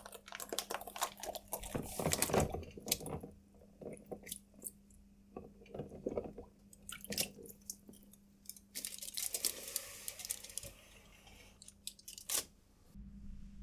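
Plastic bag crinkling and water splashing as a bag of toy parts is handled and pushed down into a tub of warm water, then aluminium foil rustling near the end. A low steady hum runs underneath.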